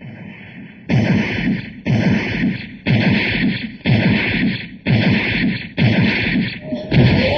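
Animated sound effect of a giant robot's walking steps: a heavy mechanical beat about once a second, each with a hiss. The steps are faint at first and loud from about a second in, and a short sliding tone comes near the end.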